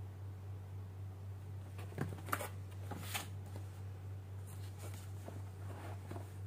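A cardboard box being handled and turned over in the hand: rustles, scrapes and a few sharp taps about two to three seconds in. Near the end the box's top flap is pulled open. A steady low hum runs underneath.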